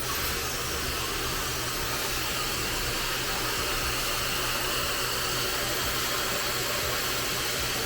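Dyson hand-held hair dryer switched on and blowing steadily, a constant rushing air noise with a faint high whine.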